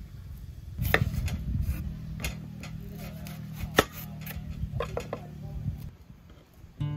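Onion being peeled and cut with a knife on a bamboo cutting board: dry skin rustling and a few sharp knocks of the blade on the board.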